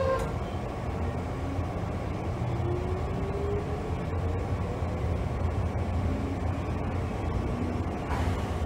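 JR 201-series electric train motor car pulling away from a station: a steady low running hum, with a faint whine from the traction motors and thyristor chopper control rising slowly in pitch as the train gathers speed.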